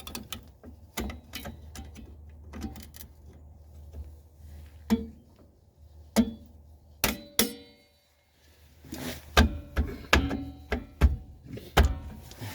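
Metal brake parts and hand tools clicking, tapping and clanking during drum brake reassembly, with a few louder ringing metal clanks near the middle and toward the end. A low steady hum sits underneath for the first part.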